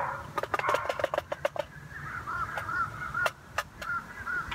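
Quick clinks and knocks of metal cookware being set onto a small camp stove, then a bird calling over and over in short repeated notes.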